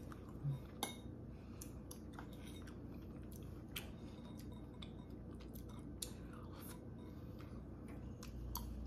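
Quiet eating sounds: a metal spoon clicking against a glass bowl of ice cream and small mouth clicks of chewing, scattered through, over a faint low hum. A soft low bump comes about half a second in.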